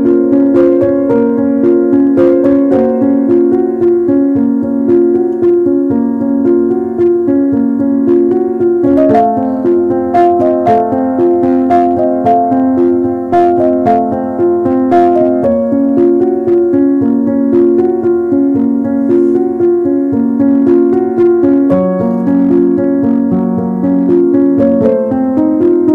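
Background piano music, a melody of evenly paced notes.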